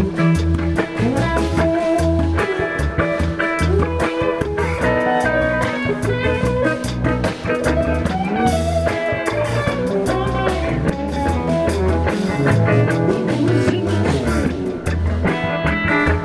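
Blues music with no singing: a guitar plays the lead over bass and a steady drum-kit beat.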